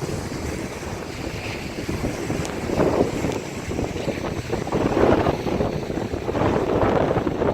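Wind rumbling on the microphone, swelling in gusts about three, five and seven seconds in.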